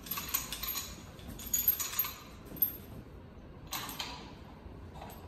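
Clicks and rattles of plastic protective caps being pulled off a metal paint-sprayer suction tube, with a short clatter a little before the end of the first four seconds as the tube is set onto the pump inlet.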